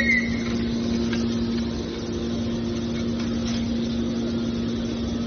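Hydraulic scrap metal baler's power unit running, a steady machine hum with one constant tone, a brief click at the very start.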